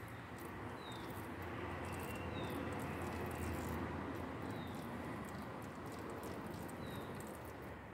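Faint, even background noise that swells a little in the middle, with a short high chirp about every two seconds.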